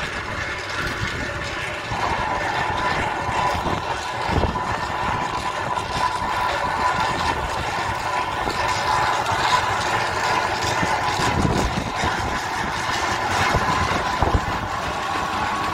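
Steam road engine running at rest, a steady mechanical noise; a steady high tone joins about two seconds in, and a few dull thumps come through.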